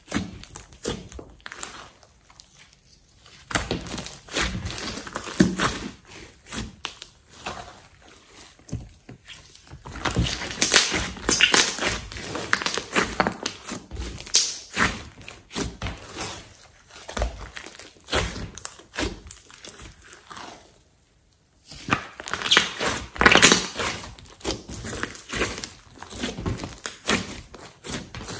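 A large mass of orange slime mixed with clay being squished, pressed and stretched by hand, giving irregular runs of wet squelches, pops and crackles as trapped air bursts, with a brief pause about three-quarters of the way through.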